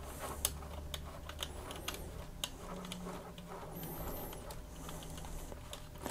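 LEGO Technic plastic gears and beams giving many light, irregular clicks as a side handle is turned to fold up a trailer's rear ramp.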